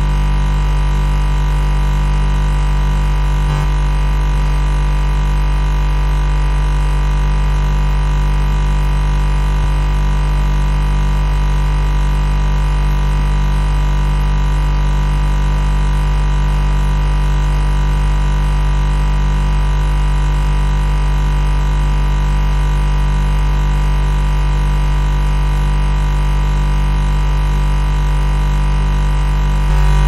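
Refrigerator compressor humming: a constant low drone with several steady higher tones above it, unchanging throughout.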